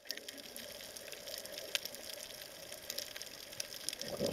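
Underwater sound over a coral reef: a faint, steady hiss with scattered sharp clicks and crackles. Near the end a louder, lower rushing noise comes in.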